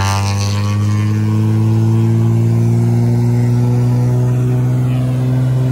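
Cessna 188 agricultural plane's six-cylinder piston engine and propeller running as it taxis, the engine note climbing slowly in pitch.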